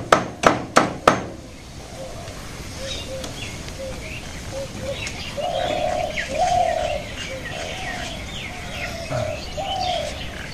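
A quick run of about six sharp knocks in the first second, then doves cooing over and over, with small birds chirping.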